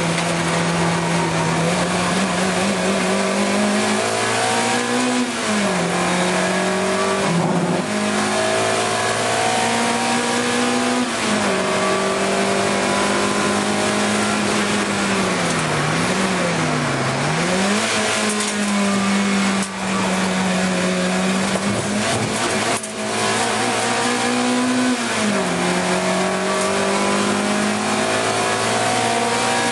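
Race car engine heard from inside the cabin at racing speed, climbing in pitch through the revs and dropping back at each gear change, several times over. About halfway through it dips and rises twice in quick succession as the car slows and downshifts for a corner.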